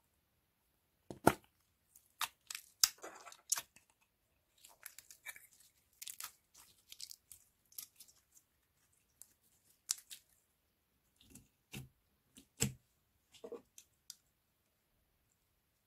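Slime being squished and worked by hand, with irregular sharp clicks and crackles.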